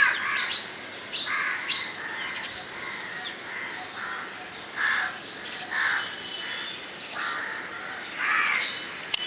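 Morning birds calling from a rooftop: short, harsh calls repeating irregularly, with higher chirps mixed among them.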